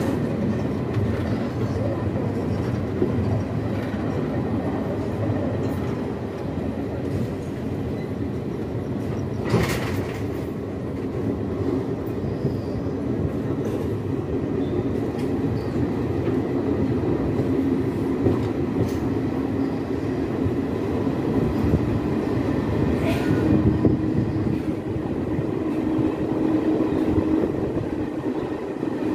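Passenger express train running along a station platform, heard from aboard at the coach side: a steady rumble of wheels on rail, with a sharp clack about ten seconds in and a fainter one about twenty-three seconds in. A low steady whine joins for the last few seconds.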